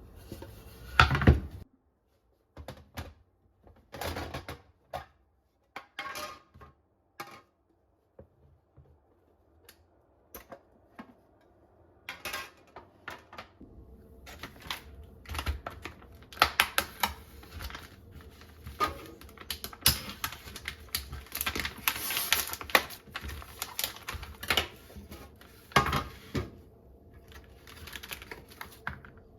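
Small household objects being handled and set down: a series of separate clicks, taps and knocks, one loud knock about a second in, and busier clatter through the second half.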